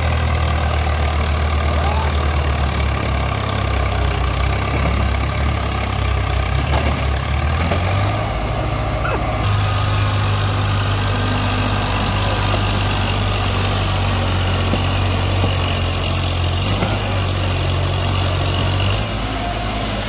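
Heavy diesel engine of a tractor or backhoe running steadily, its low hum shifting in pitch a few times.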